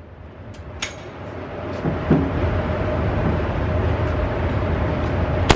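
A few faint clicks, then a steady rushing noise with a low hum that builds up. Near the end, a single sharp shot from an AR-style rifle rings out, followed by the range's echo.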